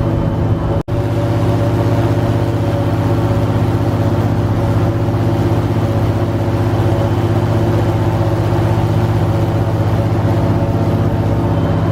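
Airboat engine and propeller running steadily at cruising speed, a loud, even drone, with a momentary dropout about a second in.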